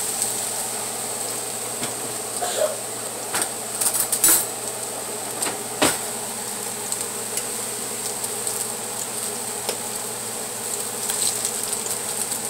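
Plantain slices frying in shallow oil in a pan: a steady sizzle with a few sharp crackles and pops about four and six seconds in.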